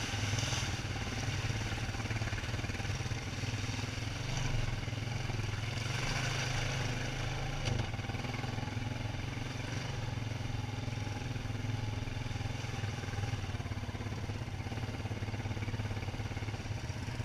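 ATV engine running steadily at cruising speed while the quad rides along a dirt trail: a constant low drone with road and rattle noise over it.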